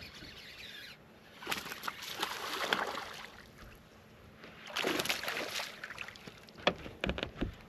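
Water splashing in two surges as a hooked bass thrashes at the surface, followed by a few sharp knocks near the end.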